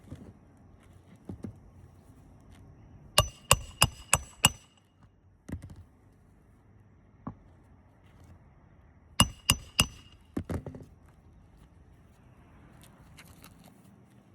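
Hammer driving roofing nails into a composition shingle: a quick run of about five sharp, ringing metal blows, then a second run of four a few seconds later, followed by a few duller knocks.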